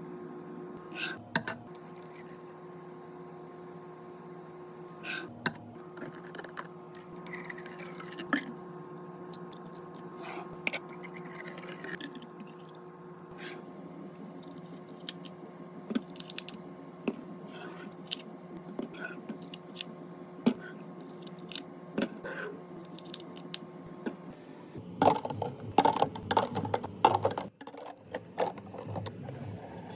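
Mini fridge being restocked by hand: scattered clicks, taps and light knocks of drinks and packaged snacks being handled and set down, over a steady low hum. Near the end the handling turns louder and busier, a quick run of clatter.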